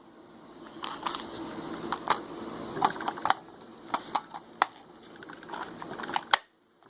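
Scattered light clicks and taps, about ten, of a plastic body control module case and its circuit board being handled and fitted together. A sharper tap comes near the end, and then the sound cuts off abruptly.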